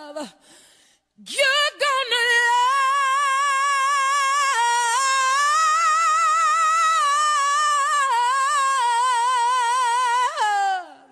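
A single voice singing unaccompanied. About a second in it comes in and holds one long, high note with wide vibrato for roughly nine seconds, then slides down at the end.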